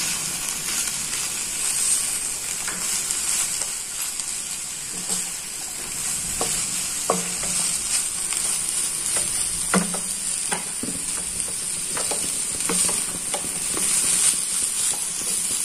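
Shredded chicken, cabbage, capsicum and onion sizzling in a pan while a wooden spatula stirs and tosses them, with a steady frying hiss and short knocks and scrapes of the spatula against the pan now and then.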